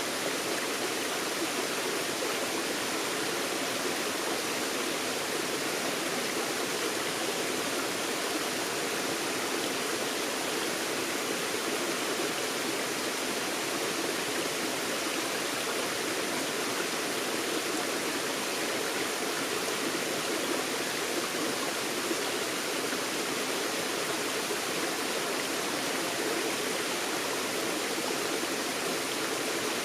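Forest stream flowing steadily over rocks, an even rushing of water without breaks.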